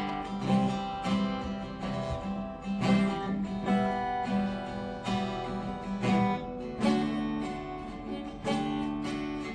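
Acoustic guitar strummed in slow chords, one every second or so.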